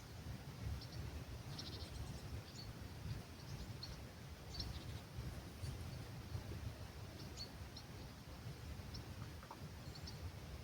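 Small birds giving scattered short, high chirps at dawn in an olive grove, over a steady low rumble of breeze on the microphone.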